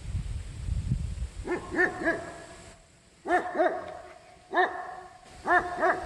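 A dog barking at a passer-by it has been disturbed by: about eight short barks in groups of one to three, starting about a second and a half in. A low rumble on the microphone comes before the first barks.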